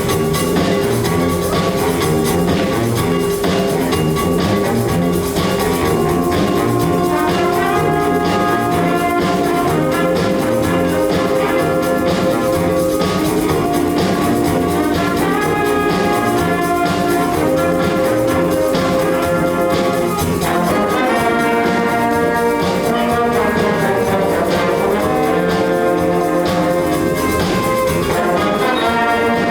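A high school band playing live, brass prominent, with held chords, moving melodic lines and steady percussion.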